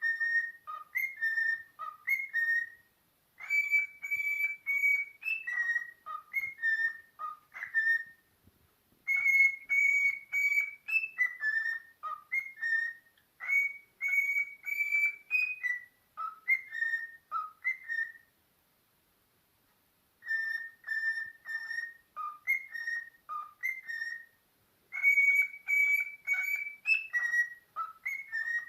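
A parrot whistling a tune in short, clear notes, some sliding up or down, repeating the same phrase three times with brief pauses between.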